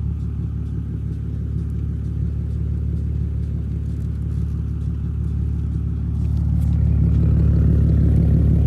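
BMW E46 328i's 2.8-litre inline-six running, a steady low engine drone that grows louder about six seconds in.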